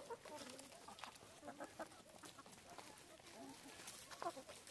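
Flock of chickens clucking faintly while feeding: short, scattered calls from several hens, with one a little louder near the end.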